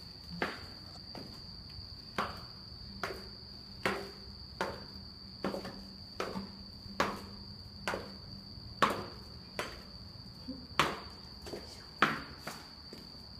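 Footsteps going down concrete stairs, sharp regular steps a little under once a second, over a steady high-pitched insect trill.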